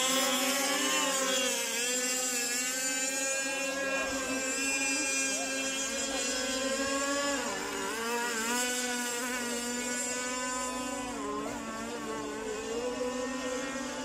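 High-pitched whine of electric brushless RC speedboat motors (WL915-type racing boats) running on the water, the pitch dipping and rising again every few seconds as the boats ease off and accelerate.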